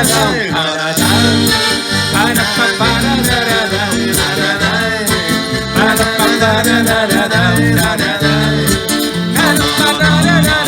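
Live acoustic band playing an instrumental break between verses of a bard song: a wavering melody line over a steady, repeating bass line.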